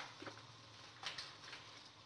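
A few faint, light clicks and taps of food and utensils being handled at a kitchen sink, over a low steady hum.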